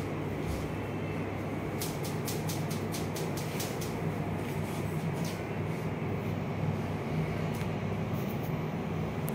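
Hairdressing scissors snipping through hair: a quick run of crisp snips about two seconds in and a few more later, over a steady low hum in the room.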